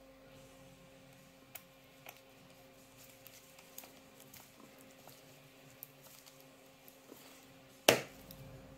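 Faint scattered small clicks and scrapes of a Torx T5 precision screwdriver working a bottom-cover screw into a laptop's case, over a faint steady hum. One sharp knock near the end is the loudest sound.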